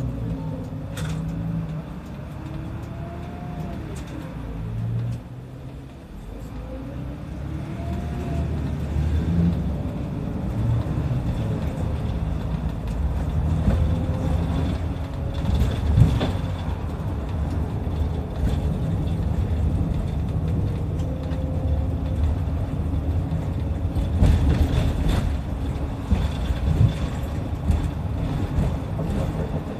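Kanachu route bus engine and road noise heard from inside the bus as it drives. The engine note rises and falls twice in the first ten seconds, then runs steadily, with a few sharp knocks or rattles in the second half.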